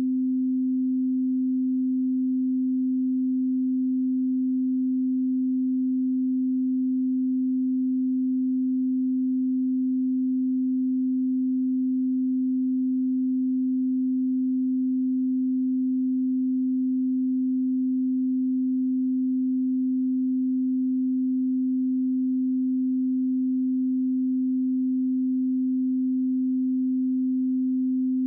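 A steady 258 Hz pure sine tone, an audio calibration test signal, held at constant pitch and level with nothing else heard.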